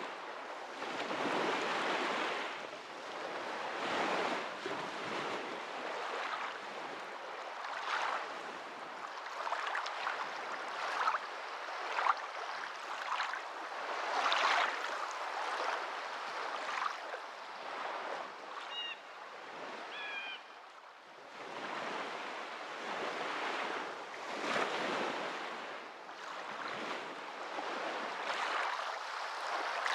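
Water washing in repeated surges, like small waves on a shore, swelling and fading every few seconds. A couple of short high chirps come just before the two-thirds mark.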